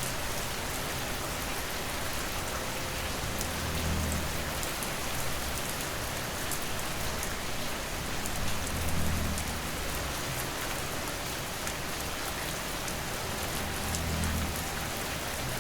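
Steady rain falling, an even hiss with the patter of individual drops. A low rumble swells and fades about every five seconds.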